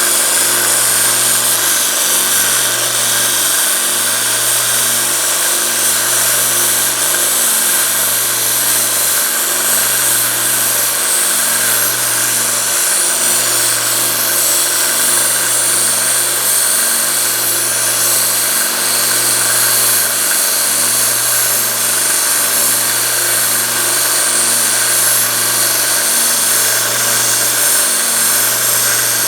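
Belt sander running with a 120-grit belt while steel pliers are ground and shaped against it: a steady motor hum under a continuous grinding hiss, with a faint regular dip about every two seconds.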